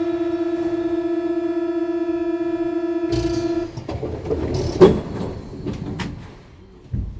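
Door-closing warning buzzer on a Paris Métro MP73 train: a steady electric buzz for about three and a half seconds. The doors slam shut with a thud just before the buzz stops. Clunks and a sharp knock follow, then a low thump near the end.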